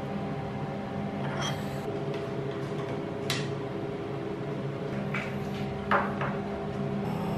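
A steady electrical hum with a few sharp clicks and knocks as parts of the CNC router are handled; the loudest knock comes about six seconds in. Just before the end a high steady whine starts up.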